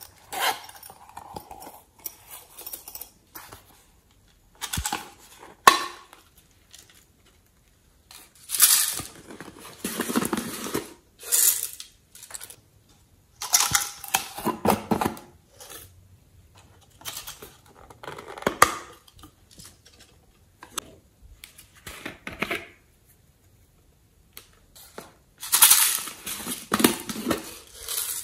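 Hands opening and handling small plastic containers of slime add-ins: intermittent clicks, snaps, rattling and rustling in bursts a few seconds apart, with two sharp clicks about five seconds in and a loud rattling burst near the end.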